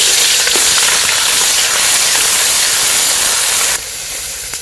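Sliced shallots sizzling loudly in hot groundnut oil in a pan, a strong steady hiss that settles to a quieter frying sizzle near the end.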